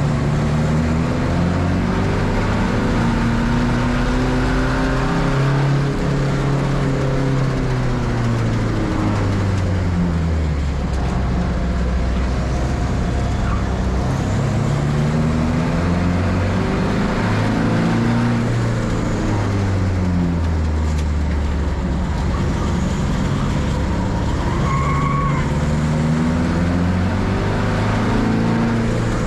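Race car engine running hard, its pitch climbing under acceleration and dropping away again several times in long sweeps, as on a lap of a circuit.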